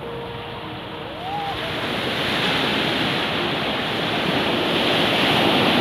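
Surf washing up on a sandy beach, a steady rush that swells about a second and a half in, with wind buffeting the microphone. A short rising-then-falling tone sounds once near the start.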